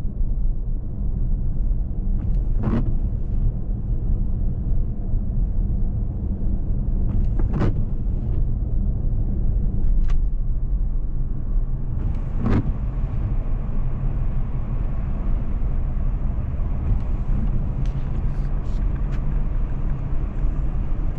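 Car driving: steady engine and road rumble, with three short knocks about 3, 8 and 12 seconds in.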